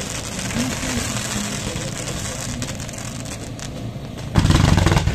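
Pyrotechnic spark fountains hissing steadily. About four and a half seconds in, a loud blast lasting under a second.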